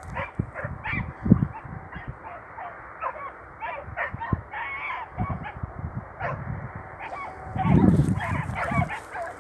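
Many short animal calls, repeated in quick succession, with a low rumbling noise that swells about eight seconds in.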